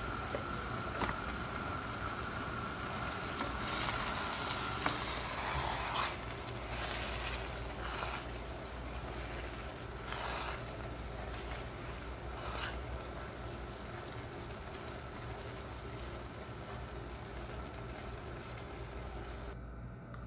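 Pot of rice and grape leaves simmering with a low sizzle, while a plastic spatula stirs and scrapes through it in a series of strokes from about 4 to 13 seconds in.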